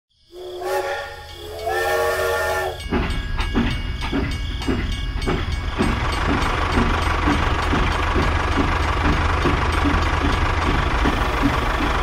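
Steam-locomotive sound from a toy train: two whistle blasts, then steady chuffing at about three to four beats a second over a low hum, as of an engine pulling away.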